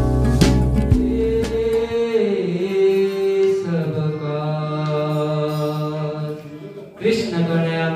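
A man chanting an invocation into a microphone in long, steadily held notes, with a brief break just before the end. For the first two seconds the end of an intro music track with plucked notes and a heavy bass is heard.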